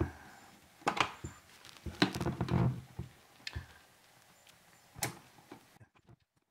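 Flathead screwdriver clicking and scraping against an electrical outlet's metal mounting strap and the surrounding metal backsplash tile as the receptacle is pried out of its box. A few sharp clicks and knocks, with a denser cluster about two seconds in and another single knock about five seconds in.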